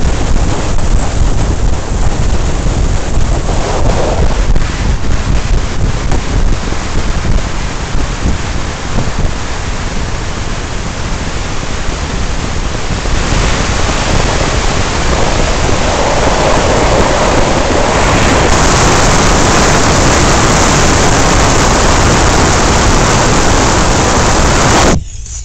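Wind buffeting the microphone in an open convertible at highway speed, mixed with road and tyre noise: a loud, steady rush that grows louder about halfway through and cuts off abruptly just before the end.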